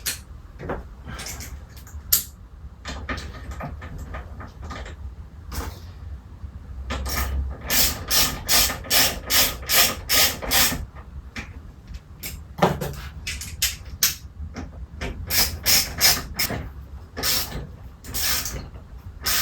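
Ratchet wrench driving the rear brake caliper bolts of a motorcycle home. There are two runs of quick rasping strokes, about three a second, with odd metallic clicks and knocks between them.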